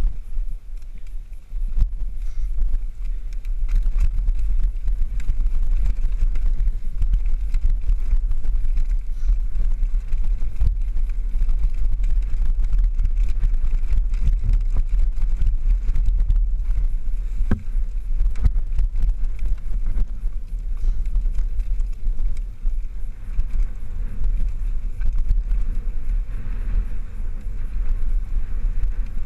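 Wind rumbling over the microphone of a rider-mounted camera on a mountain bike descending dirt singletrack, with the tyres and bike rattling and knocking over bumps.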